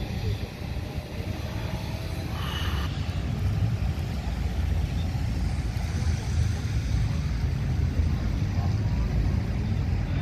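Car engines running at the drag strip, heard as a steady low rumble under wind buffeting the microphone.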